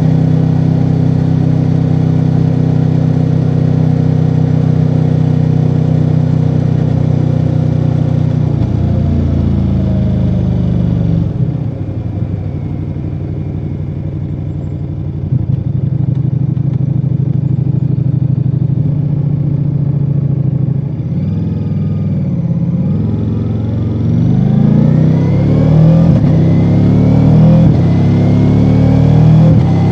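Ducati Multistrada V4 Rally's V4 engine through its stock exhaust, on the move. It holds a steady note for the first several seconds, then the revs drop and it runs quieter for a while. In the last part it picks up again, the revs rising and falling several times and the level climbing.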